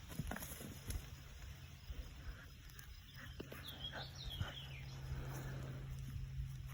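Outdoor ambience: a bird chirps a few quick notes about halfway through, over a steady low hum and scattered light thumps and rustles.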